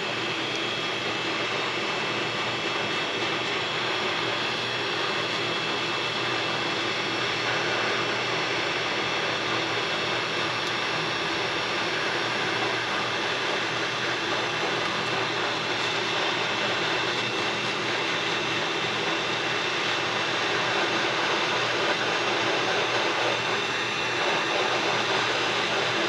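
Hot-air rework station blowing at about 300 °C onto a circuit board to melt the solder holding a charging connector: a steady rushing hiss with a faint, steady high whine.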